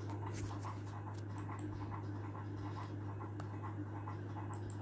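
Faint scratching and rustling handling noise with scattered small clicks, over a steady low hum.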